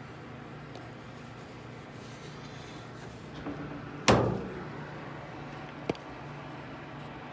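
A single loud knock about four seconds in, ringing out briefly, then a sharper, fainter click nearly two seconds later, over a steady low hum: things being set down and handled inside a clothes dryer's cabinet.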